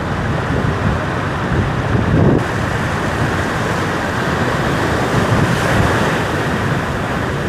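Heavy ocean swell surging and breaking against a rock ledge: a steady loud wash of surf, with wind buffeting the microphone.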